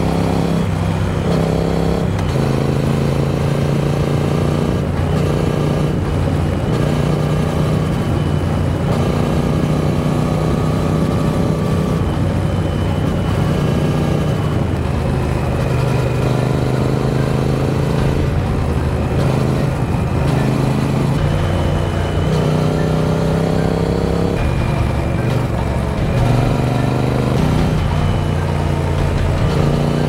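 Triumph Speed Twin 900's parallel-twin engine running under way. Its note climbs as the bike accelerates and drops back with each gear change, several times over.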